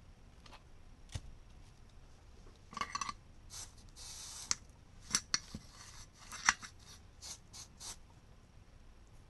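Small hand tools being handled on a workbench: a run of sharp clicks and snips, with a short scraping rub about four seconds in.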